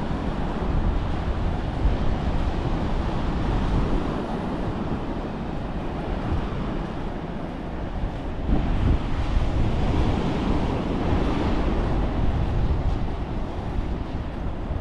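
Ocean surf washing on the beach under gusting wind buffeting the microphone, the surf swelling louder for a few seconds past the middle.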